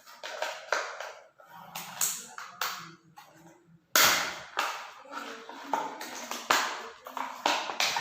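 Cardboard box and its packing being handled and pulled open: a run of sharp rustles and scrapes, the loudest coming suddenly about four seconds in.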